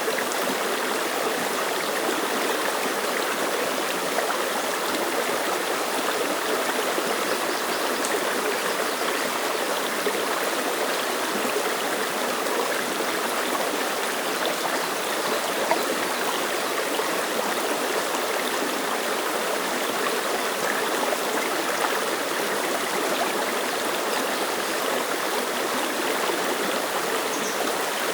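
Clear mountain stream rushing and splashing over rocks, a steady, even burble of water.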